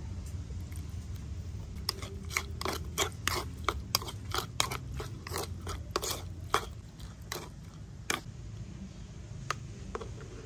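A quick run of sharp, crisp crunching clicks, about three a second, starting about two seconds in and stopping about eight seconds in, with a few stray clicks near the end, over a steady low rumble.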